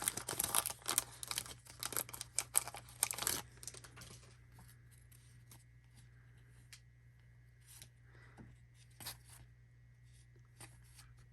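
A trading-card pack wrapper crinkling and tearing for about three and a half seconds, then a few faint clicks and taps as the cards are handled.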